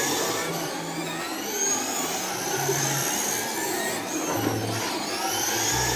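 Several RC race cars running laps together, their motors and drivetrains whining high and rising and falling in pitch as they speed up and pass, over a steady hiss of tyres on the track.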